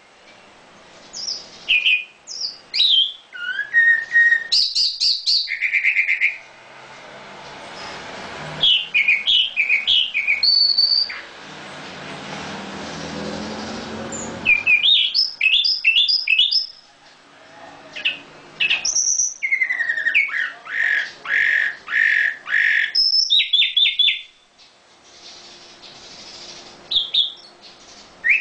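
A songbird singing in bursts of varied whistled chirps and rapid trills. Partway through, a rushing noise swells and fades beneath the song for several seconds.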